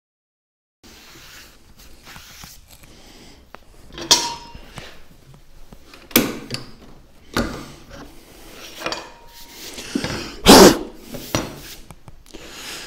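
Irregular knocks and clatters of hand tools and a wooden block being handled and set down on a wooden workbench. A couple of them have a short metallic ring, and the loudest comes late on.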